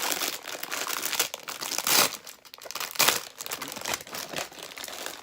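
Plastic packaging of a squishy toy crinkling as it is handled, with louder crackles about two and three seconds in.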